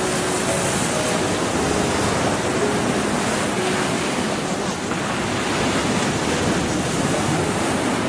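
Sea surf washing onto a sandy beach and breaking around a rock, a steady rushing wash of waves.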